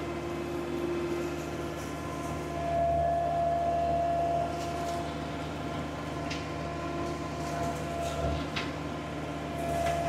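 Skid steer engine running steadily under load while back-dragging with a tilted tooth bucket, with a whine that grows louder about three seconds in and again near the end, and a couple of light clinks.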